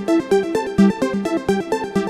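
iPhone ringtone playing: a fast melody of short, quick-changing notes over light ticking percussion.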